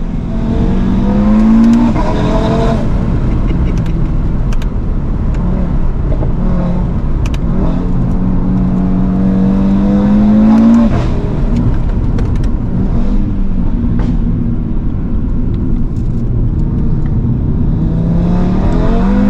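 Audi RS3's turbocharged 2.5-litre five-cylinder (DAZA) under hard acceleration. The revs climb and fall sharply at upshifts about three seconds in and again about eleven seconds in, and rise once more near the end. Sharp cracks from the exhaust are scattered throughout.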